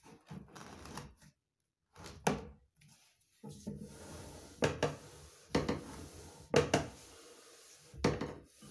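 A pipe sliding and scraping in the round hole of a wooden fuigo box bellows, with about half a dozen sharp knocks of the pipe against the wooden box.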